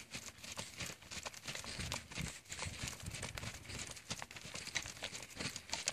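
Saddled horse trotting on a lunge line over sand: faint, soft hoofbeats with scattered clicks and rustling.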